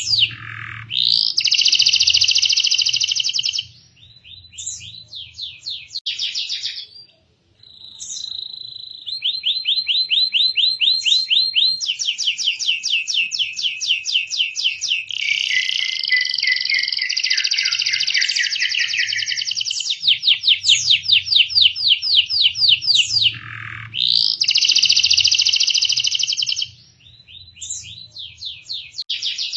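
Canary singing a long, fast song of rapid trills, rolls of quickly repeated notes with some rising glides, broken by a few short pauses.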